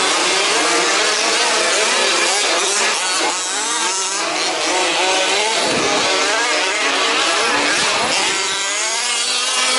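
Several 1/5-scale petrol RC off-road race cars running together, their small two-stroke engines revving up and down as they race, with cars sweeping close past twice near the middle.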